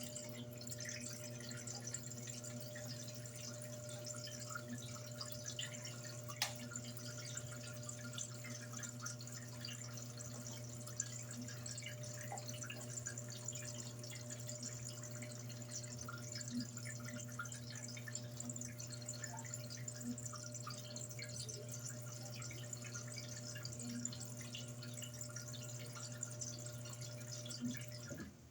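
Electrolux LED14 top-load washing machine running with a steady electrical hum, water trickling and dripping inside it. The hum cuts off suddenly near the end.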